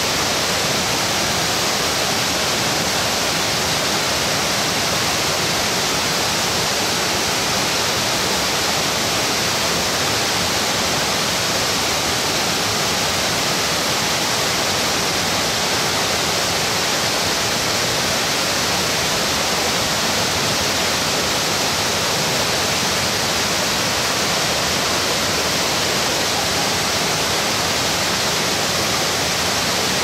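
Clear mountain stream rushing through rapids between boulders, the water just below a waterfall: a loud, steady rush of water with no change.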